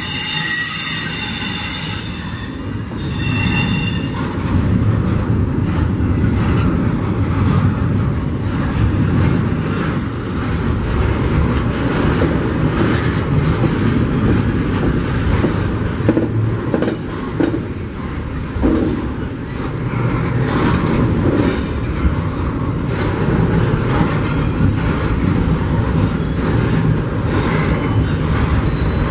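Double-stack container train of well cars rolling past, a steady loud rumble and rattle of wheels on rail, with high wheel squeal in the first few seconds.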